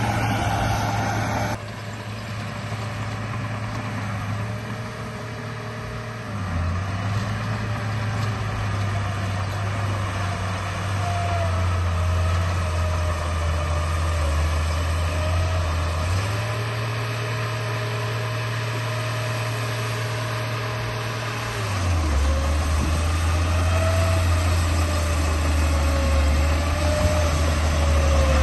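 RC bulldozer running with a steady, idling engine-like drone that shifts pitch in steps a few times, under a higher wavering whine.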